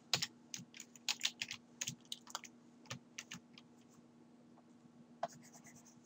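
Computer keyboard keys clicking, faint, in quick runs over the first three seconds or so, then only a few scattered clicks. A faint steady hum runs underneath.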